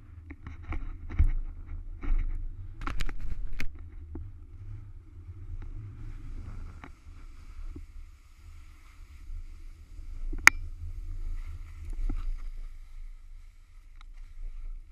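Skis sliding and scraping over firm spring snow during a descent, with wind rumbling on the camera's microphone. Several sharp clicks or knocks; the sharpest comes a little past halfway.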